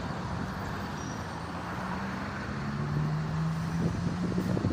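Road traffic with a vehicle engine running nearby, a steady low hum over a rushing background.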